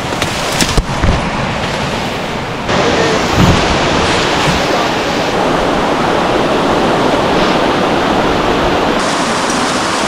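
Rushing water of a mountain stream and waterfall: a steady rush of noise that becomes suddenly louder about three seconds in. A few sharp knocks sound in the first second.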